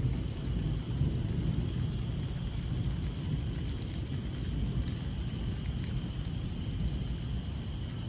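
Heavy rain falling steadily, with a continuous low rumble beneath it.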